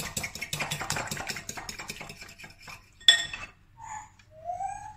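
Metal fork whisking a raw egg in a glass bowl: quick, rapid clinks of the fork against the glass, which stop about three seconds in with one sharp, loud clink. A short rising squeak follows near the end.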